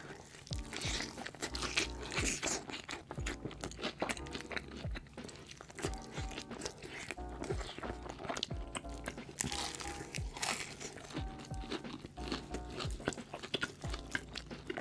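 Close-miked crunching bites and chewing of crispy fried chicken, many short crunches throughout, over soft background music.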